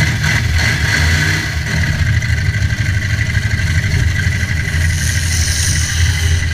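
Demolition derby car engines running loud and steady with a deep rumble.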